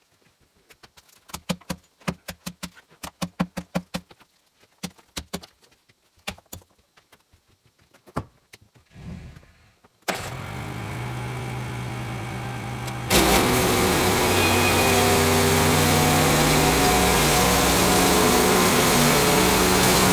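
A few clanks and knocks, then about halfway through a small gasoline engine, likely the Woodland Mills HM130 sawmill's, starts and idles. About three seconds later it is throttled up sharply and runs steadily at full speed.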